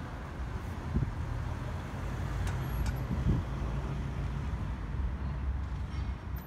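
Street traffic, a steady low rumble of car engines and tyres.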